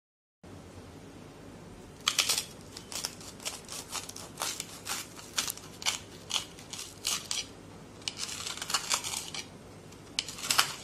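Kitchen knife sawing through the toasted crust of a grilled sandwich: a run of crisp crunching strokes, about two or three a second, then denser crunching near the end.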